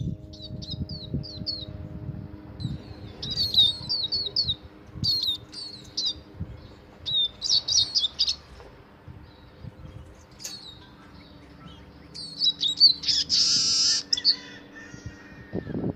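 Male Eurasian siskin singing: short bursts of quick, high twittering chirps with pauses between them, and a longer buzzy wheeze about thirteen seconds in.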